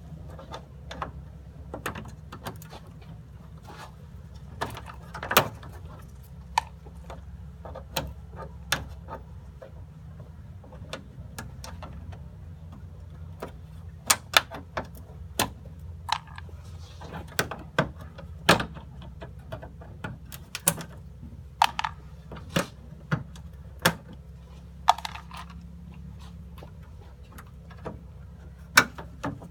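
Irregular clicks, taps and knocks of hand tools and plastic trim fasteners being worked while taking off a car's front bumper, some with a short ringing tail, over a steady low hum.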